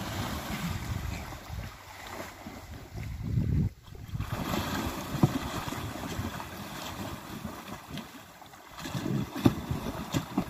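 Water splashing and churning as two African elephants wrestle in a river, with wind buffeting the microphone as an uneven rumble. A few brief, louder splashes stand out about halfway and again near the end.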